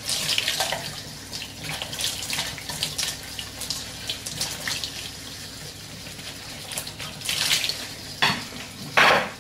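Dishes being washed by hand in a kitchen sink: water running and splashing as things are rinsed, with louder splashes in the last couple of seconds.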